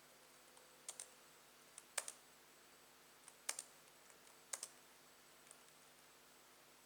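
Keyboard keys pressed one at a time: a handful of separate clicks about a second apart, some doubled, over near silence.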